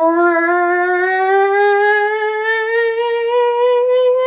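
A woman's voice imitating a CT scanner spinning up: one long hummed tone that rises slowly in pitch, like the machine charging up.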